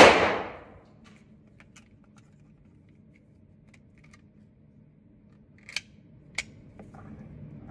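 A single loud gunshot at the start, echoing briefly off the range walls, then faint small clicks of handling. About six seconds in come two sharp metallic clacks half a second apart as a magazine is seated in an FMK 9C1 9mm pistol and the slide is worked.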